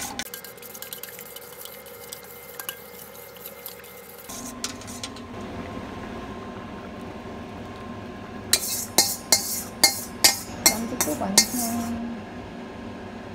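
Metal spoon clinking against a stainless steel mixing bowl as beaten egg is poured from it into a pot of soup. A quick run of about nine sharp clinks comes near the end, over a steady hiss that starts about four seconds in.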